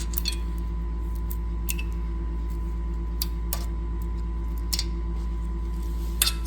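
Scattered short, sharp clicks and clinks of metal tools and engine parts being handled, the last one the loudest, over a steady low hum.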